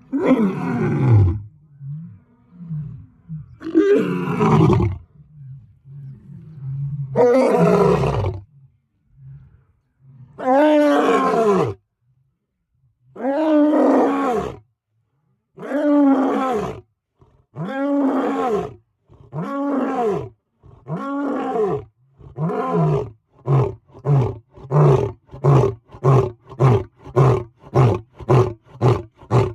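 A large animal roaring in a long bout: several drawn-out roars a few seconds apart, then shorter calls that come faster and faster towards the end.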